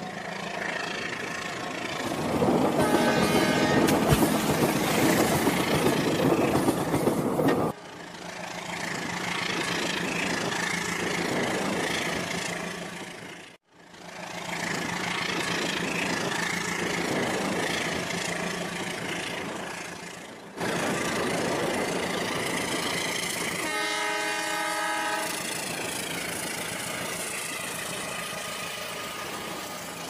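Toy train running, with a horn sounding twice, briefly about 3 s in and again about 24 s in. The running noise breaks off and restarts at cuts about 8, 14 and 21 seconds in.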